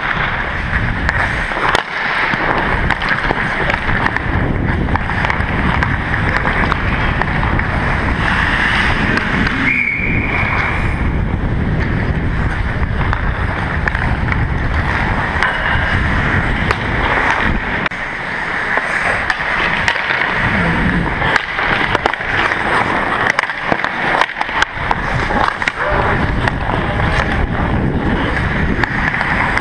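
Rushing wind and motion noise on a hockey player's worn action camera as he skates, with skate blades scraping the ice and scattered sharp clicks. A short high tone sounds briefly about ten seconds in.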